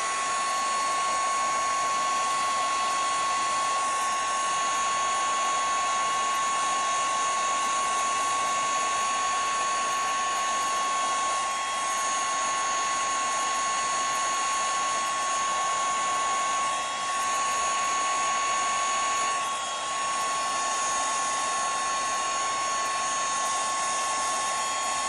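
Craft heat tool running steadily, a fan hiss with a steady high whine, heating snow-marker puff paint so that it swells into raised 3D snow.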